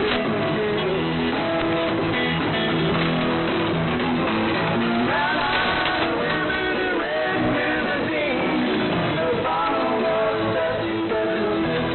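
Music with strummed guitar and singing, received over AM shortwave radio, so it sounds thin and muffled with the high end cut away.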